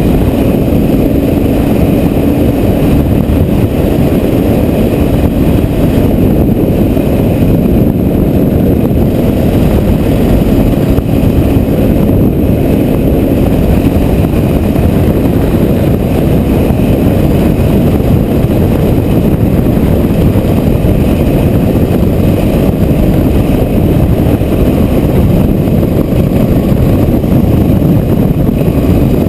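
Strong wind in a dust storm buffeting the microphone: a loud, steady low rumble with no let-up.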